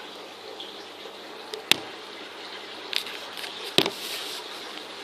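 Handling noise: two sharp clicks or knocks, about two seconds apart, with a softer tap between them, over a low steady hiss.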